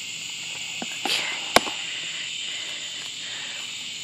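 A steady, high-pitched chorus of insects, with one sharp knock about a second and a half in as the plastic water bowls are picked up.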